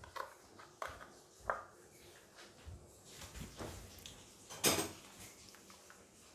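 Small kitchen handling noises as instant coconut milk sachets are handled over the pan: a few light clicks and taps, then one louder, short rustle about four and a half seconds in.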